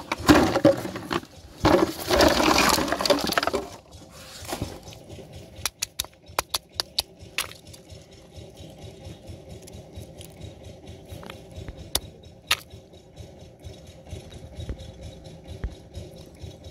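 Empty plastic bottles rattling and clattering in a plastic basin for the first few seconds, in two bursts. Then a quick run of about six sharp cracks as snail shells are broken open on a metal plate, with two more cracks later.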